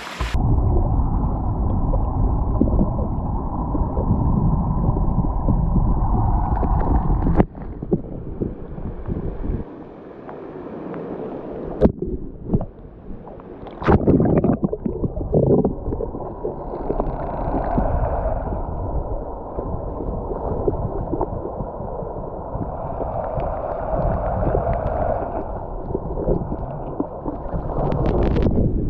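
Muffled gurgling and sloshing of stream water, with a few sharp knocks about seven, twelve and fourteen seconds in.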